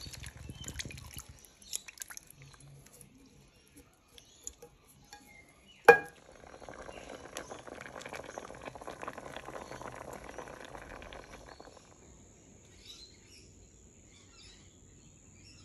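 White liquid pours over a pot of pipi shells at the start, with the shells clinking. A single sharp knock about six seconds in is the loudest sound. Then comes several seconds of the pot of pipis cooking, a dense crackling hiss that fades near the end.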